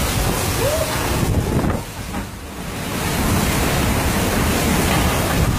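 Wind-driven downpour in a violent thunderstorm, with strong gusts buffeting the microphone; it eases for a moment about two seconds in, then picks up again.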